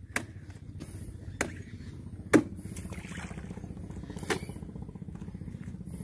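Oil palm fresh fruit bunches being speared with a long spiked pole and heaved into a dump truck's bed, giving four sharp knocks at uneven intervals. Under them a vehicle engine runs steadily at idle with a low, rapidly pulsing hum.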